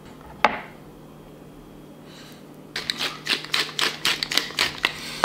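A spice shaker shaken over fish fillets in a cast iron pan: a quick run of dry rattling taps, about six a second, from about halfway through. One sharp knock about half a second in, and a louder click right at the end.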